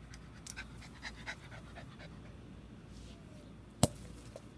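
Corgi–Chihuahua mix dog panting in short breaths, with one sharp knock near the end.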